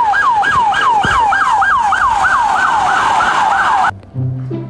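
Toy police car's electronic siren sounding in quick falling sweeps, about four a second, cutting off suddenly near the end.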